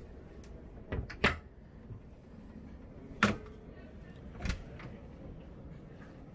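Wooden cupboard doors clicking shut, then a cabin door's lever handle and latch clicking as the door is opened. There are four sharp clicks: two close together about a second in, another at about three seconds, and a last one at about four and a half seconds.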